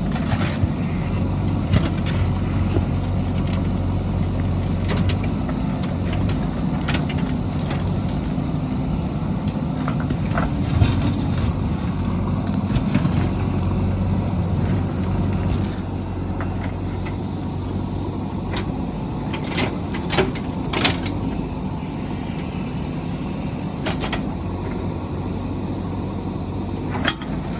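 JCB backhoe loader's diesel engine running steadily while working, with scattered sharp clanks and knocks. The sound gets slightly quieter about halfway through.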